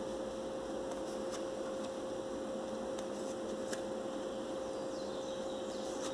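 Steady electrical hum, one held tone over a faint hiss, with a few faint ticks as tarot cards are dealt onto a cloth-covered table.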